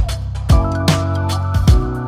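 Background music with a steady drum beat over sustained chords.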